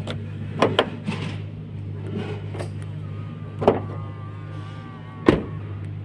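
New key being turned in the door lock of a Mitsubishi ASX, giving several sharp clicks about half a second in and two louder clunks later. A faint mechanical whine comes in the middle, and a steady low hum runs underneath.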